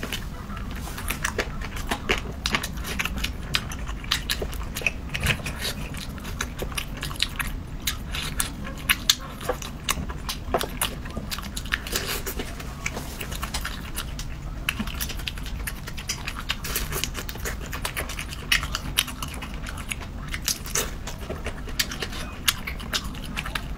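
Close-up eating sounds: a person biting, sucking and chewing whole shrimp, a dense, irregular run of wet clicks and crunches.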